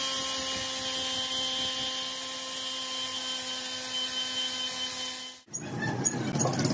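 Grinding wheel machine grinding down the weld built up on a steel differential gear's broken teeth: a steady motor hum with a high grinding hiss. It cuts off suddenly about five and a half seconds in, giving way to a different, noisier background.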